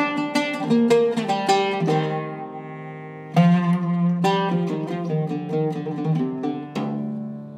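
Zeryab oud with a cedar soundboard and Indian rosewood back, plucked with a plectrum in a slow, meditative improvisation. A quick run of notes gives way to one note left to ring for about a second, then a new run starts, ending on a ringing note.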